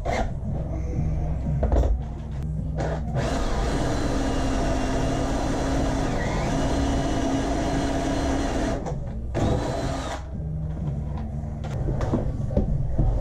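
Cordless drill driver running as it drives screws through a lining board into a van's side wall. The motor runs steadily from about three seconds in until near nine seconds, with short knocks before and after.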